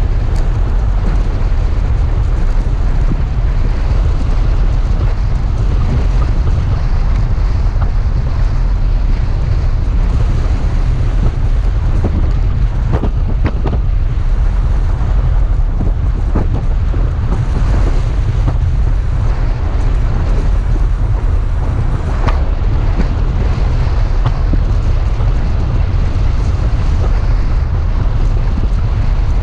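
Toyota FJ Cruiser driving on a deep-sand trail: a steady, heavy low rumble with wind buffeting the microphone. A few knocks and rattles come through about halfway in.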